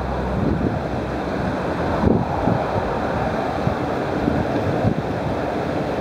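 Wind blowing across the microphone: a steady rushing noise with a few low gusts.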